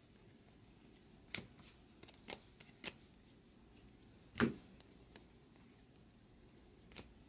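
Baseball cards being flipped through by hand, each card slid off the top of the stack: a few soft, irregular flicks and clicks of card stock, the loudest about four and a half seconds in.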